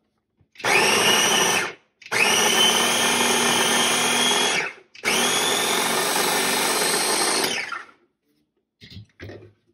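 Ninja mini chopper's electric motor whirring in three pulses, a short one and then two of about two and a half seconds each, as it chops red radishes. Its pitch rises as the blades spin up at the start of each pulse. A few light knocks follow near the end.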